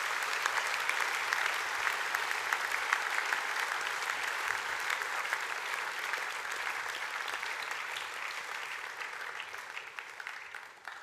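Audience applauding: many hands clapping together, steady at first and then dying away over the last few seconds.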